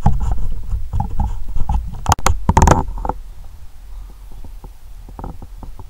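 Low rumble of wind buffeting an outdoor microphone, with a run of knocks and rustles from the camera being handled. The knocks are loudest about two to three seconds in, then give way to the steady rumble with a few faint ticks.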